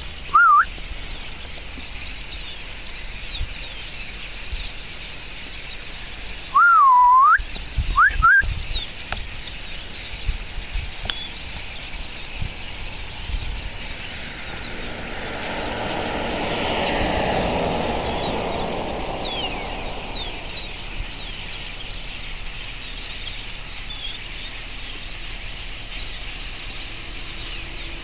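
A large flock of blackbirds chattering, many high chirps overlapping without a break. A few loud swooping whistles stand out in the first eight seconds or so, and a broad rush of noise swells and fades around the middle.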